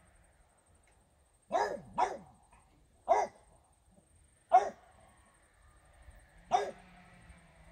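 French bulldog barking: five single barks, a quick pair about a second and a half in, then three more spaced a second or two apart.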